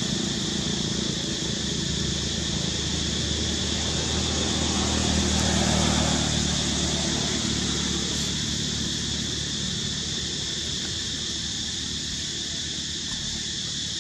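Steady high-pitched drone of insects, with a low hum underneath that swells about five seconds in and then slowly fades.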